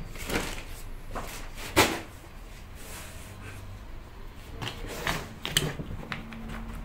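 Handling sounds of potting work: scattered knocks, taps and rustles of soil and a plastic planter box on a table. The sharpest knock comes about two seconds in, and a few more cluster near the end as the box is picked up.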